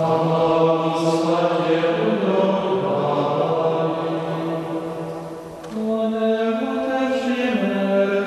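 Trappist monks chanting, a single melodic line of men's voices with long held notes. The phrase breaks off about five and a half seconds in and a new phrase begins.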